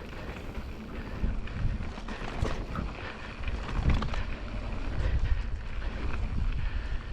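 Wind buffeting the microphone and mountain bike tyres rolling fast over a rough dirt trail on a downhill descent, with scattered knocks and rattles from the bike over bumps.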